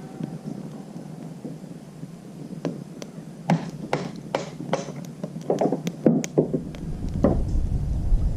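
A series of sharp wooden knocks and cracks, about a dozen, from sticks of firewood being handled and broken at a campfire. Near the end a low rumble of wind on the microphone comes in.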